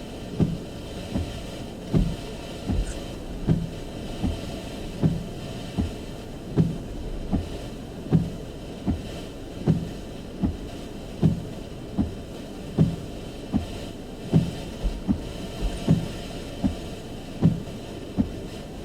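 Regular low thumps, about four every three seconds, over a steady background noise.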